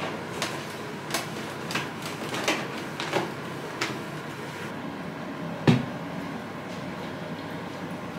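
Cloth rubbing over a stainless-steel dishwasher front, with a string of light knocks and clicks as the cloth and hand work the door, then one loud thump a little past halfway, over a steady background noise.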